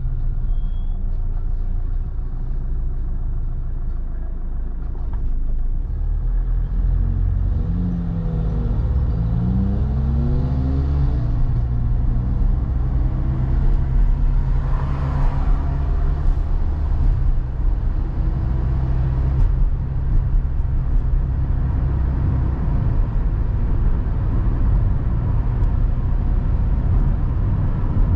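A car driving: steady low engine and road rumble, with the engine note rising as it accelerates about eight to eleven seconds in, and a brief louder rush of noise about fifteen seconds in.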